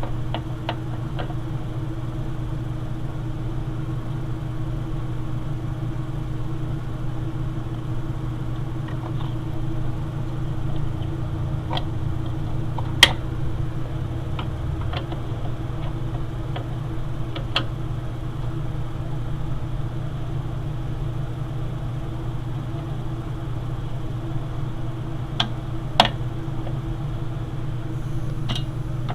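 A steady low mechanical hum with a few sharp clicks and taps scattered through it, from metal computer parts being handled while the motherboard is taken out of the desktop case.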